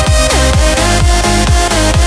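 Electronic dance music with a steady kick drum, about two beats a second, under a synth melody that glides between notes.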